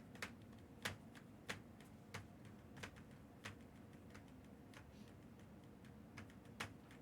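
Faint, regular ticking clicks, about one every two-thirds of a second, over a low steady room hum.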